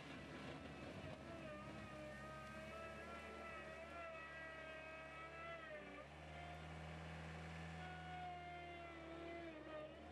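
Veper L 75 skid steer loader running: a steady low engine hum under a higher whine that wavers in pitch, dipping about six seconds in and again near the end.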